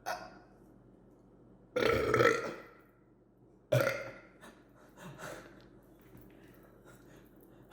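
A person burping: a long, loud burp about two seconds in, then a shorter one a couple of seconds later.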